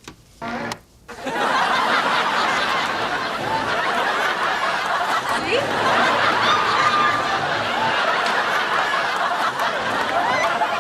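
Sitcom studio audience laughing. The laughter swells about a second in and carries on steadily for about nine seconds.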